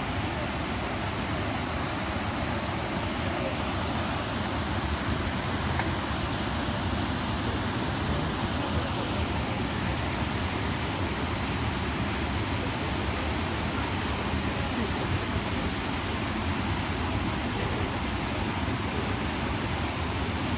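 Water pouring over a low river weir: a steady, even rush with no breaks.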